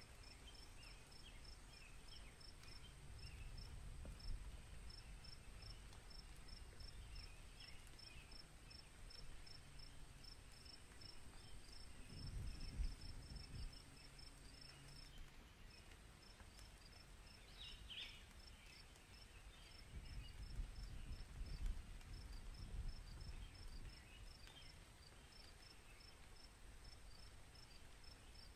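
Faint room tone with a cricket chirping steadily, about three high chirps a second, over a thin continuous high trill that breaks off for a moment midway. Soft low rumbles come and go now and then.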